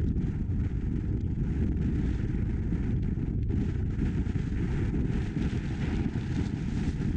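Car driving at highway speed: a steady low rumble of road and wind noise.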